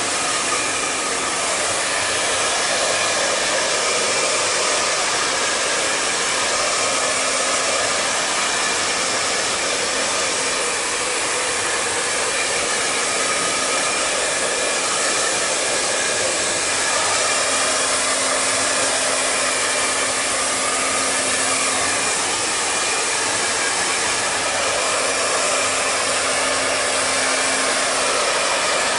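Handheld hair dryer blowing on wet hair: a steady rushing hiss with a faint steady hum beneath it.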